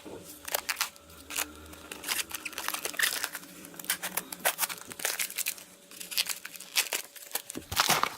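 Product packaging being handled and opened, crinkling and rustling in a string of irregular sharp crackles.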